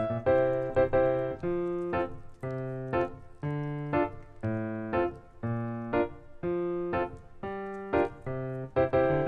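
Background piano music: evenly paced notes, about two a second, over held low notes.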